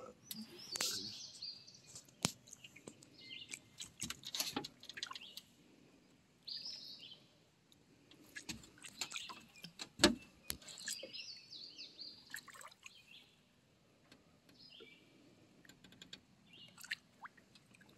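Birds chirping in short calls every few seconds, with scattered clicks and knocks of a trotline being pulled in by hand over the bow of an aluminium boat, the loudest a sharp knock about ten seconds in, and water dripping.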